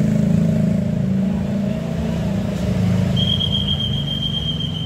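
Bus engine running low and steady. A single steady high-pitched tone joins it about three seconds in.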